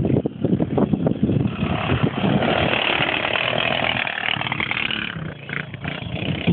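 Quad bike engine revving hard as the quad drifts past close by on loose dirt. The sound swells as it nears and eases off near the end.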